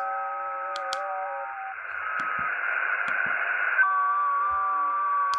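Xiegu X6100 HF transceiver's speaker playing FT8 digital signals on the 40 m band: several steady tones at once, stepping slightly in pitch. They stop about a third of the way in, leaving band hiss, and a new set of tones starts about two-thirds in. A few sharp clicks from the radio's front-panel buttons being pressed.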